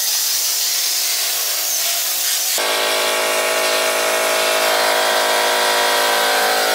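Steady rasping noise, then about two and a half seconds in a louder, steady buzz like a small motor starts abruptly and keeps running.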